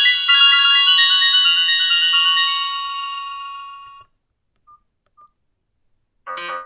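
Nokia 5310 feature phone's loudspeaker playing a default ringtone, a bright chiming melody that fades out about four seconds in. Two short beeps follow, then near the end another ringtone starts.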